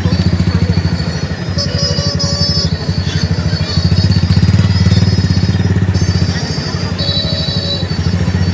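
Crowded street traffic close by: motorbike and other vehicle engines running with a steady low rumble, and music playing alongside.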